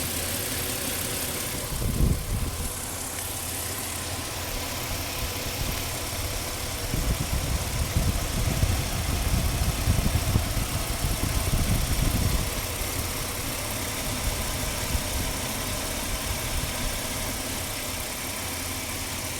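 2004 Ford Explorer engine running at a rough idle. A brief low bump comes about two seconds in, and the low rumble grows louder and more uneven from about seven to twelve seconds in.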